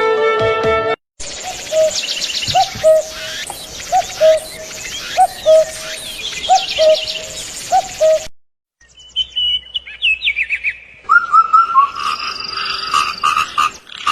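Birds calling and chirping: a low, hooked note repeats in pairs over higher chirps and trills. After a short break a second recording begins with a descending chirp series and repeated calls. Flute-like music ends in the first second.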